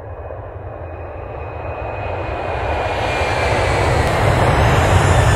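A rushing noise with a deep rumble, swelling steadily louder and brighter over several seconds, like a jet swell laid on as an intro ahead of the music.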